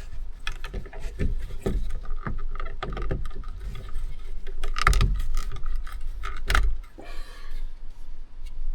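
Irregular clicks, knocks and rattles of a plastic interior ceiling light housing being unclipped and handled, and its T10 bulb socket twisted by hand to make contact. The strongest knocks come at about five seconds and six and a half seconds in.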